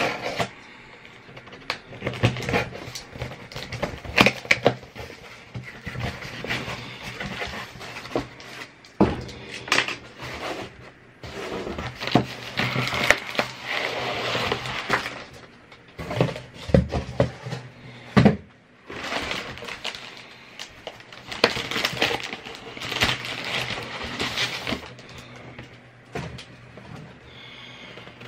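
Unboxing sounds: a cardboard shipping box being cut open and its flaps pulled back, then a plastic-wrapped package sliding out of it and crinkling. Scattered sharp knocks and scrapes of cardboard handling run throughout.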